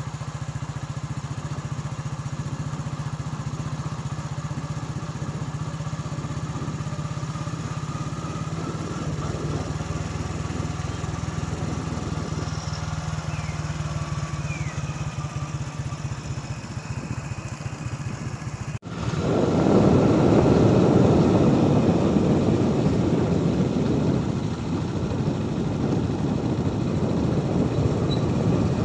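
Motorcycle engine running steadily on the move, a low even hum with road noise. About two-thirds of the way through, the sound cuts abruptly to a louder, rougher rushing noise, wind buffeting the microphone.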